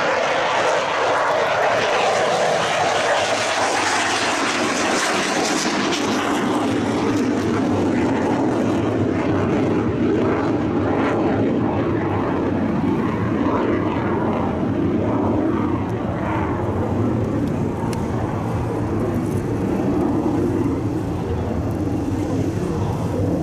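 Fighter jet flying low overhead with a loud, steady jet roar; the high hissing part fades after about five seconds, leaving a steadier lower rumble as it draws away.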